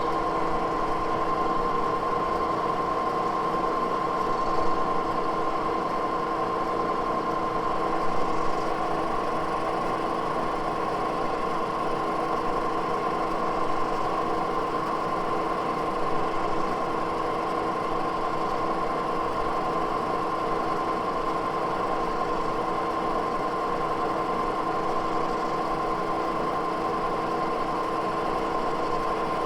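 Moore No. 2 jig borer spindle running with a steady hum as a circle-ground end mill is hand-fed to clean up a dowel pin hole, with a few faint brief bumps along the way.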